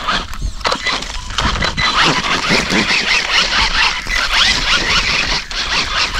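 Axial RYFT RC rock bouncer on Pro-Line Black Mamba 2.6 tires churning through loose sand, throwing sand and grit onto the camera in a dense hiss of many fine ticks.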